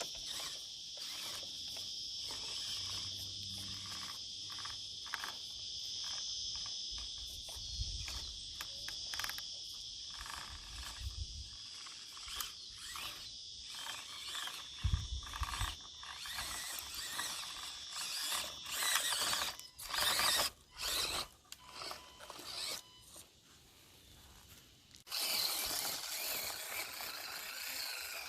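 Insects chirping steadily in high, continuous bands, over irregular clicks, scrapes and knocks from the small tyres and chassis of an Axial SCX24 micro crawler clambering over rock. A few louder scrapes come about two-thirds of the way in, and a burst of rustling noise comes near the end.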